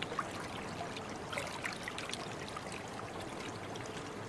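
Faint river water trickling and lapping at the bank, with a few small light ticks about a second and a half in.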